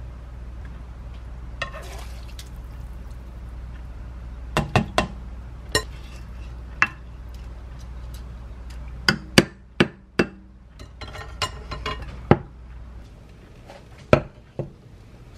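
A spatula stirring brown rice and konjac rice in water in a stainless steel rice-cooker inner pot, with a series of sharp knocks as it strikes the pot. Near the end the pot is lifted and set down with two more knocks.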